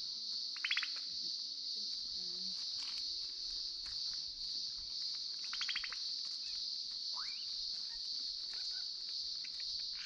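Steady high-pitched insect drone of the forest, with a bird giving two short rapid trills, one about half a second in and one near six seconds, and a brief rising whistle about seven seconds in.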